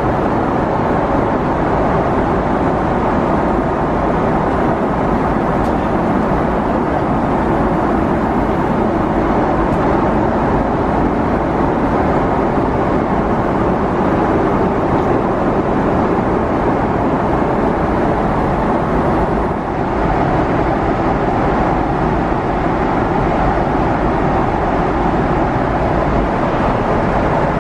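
Steady cabin noise of an airliner in flight: engine and airflow noise as an even, unbroken rumble and hiss, briefly dipping about twenty seconds in.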